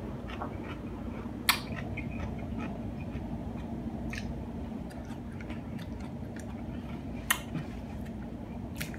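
Close-up chewing of a crunchy hard-shell taco, with many small crackles and a few louder crunches about a second and a half in, around four seconds and near seven seconds.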